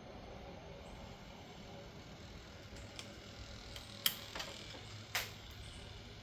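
A handful of sharp clicks and taps from a screwdriver working at a plastic connector's locking tab, the loudest about four and five seconds in, over a faint steady low hum.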